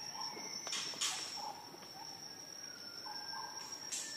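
Faint outdoor ambience dominated by a steady high-pitched insect trill, with brief rustling noises about a second in and again near the end.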